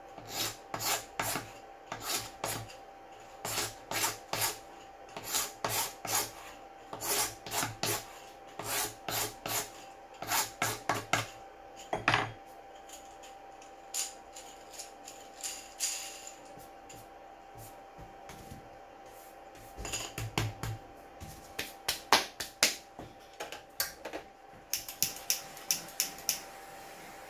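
Hand file scraping a 3D-printed plastic bearing part in clusters of quick strokes. The strokes pause for several seconds near the middle, then start again.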